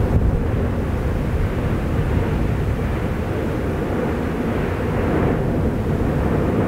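Steady low rumbling noise from the erupting Fagradalsfjall volcano, with a slight brightening about five seconds in.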